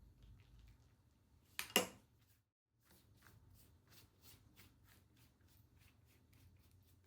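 Kitchen utensils handled on a work surface: two sharp clinks close together about a second and a half in, then, after a brief break, soft regular tapping about three times a second.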